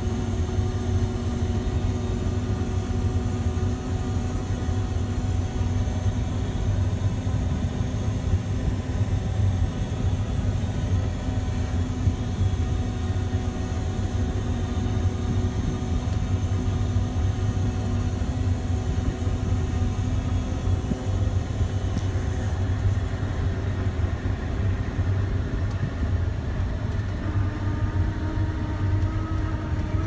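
John Deere 9500 combine's diesel engine running as the machine drives along, heard from inside the cab: a steady low drone with a few steady whining tones over it. The whine changes pitch a few seconds before the end.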